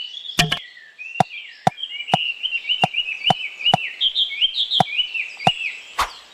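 Light, sharp taps or knocks about twice a second, a little uneven, with a somewhat heavier knock near the end. Birds chirp steadily behind them.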